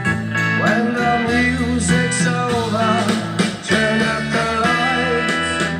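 Music: a guitar-led song with a steady beat, and a melody line that slides in pitch coming in about half a second in.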